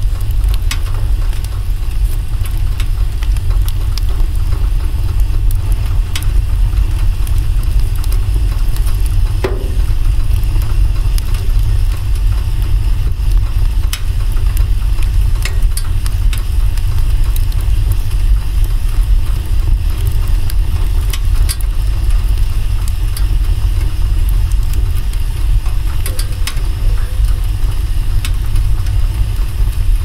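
Campfire of split logs burning: a steady low rumble of flames with scattered crackles and pops from the burning wood, one louder pop about ten seconds in.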